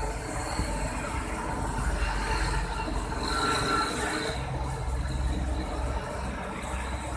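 Diesel truck engine idling: a steady low rumble.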